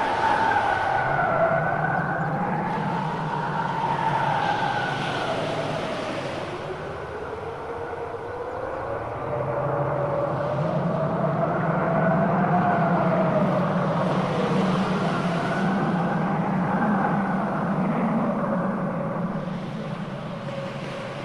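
A performance sound effect: long wailing tones that slowly rise and fall in pitch over a steady low rumble and a noisy haze, swelling and easing in loudness.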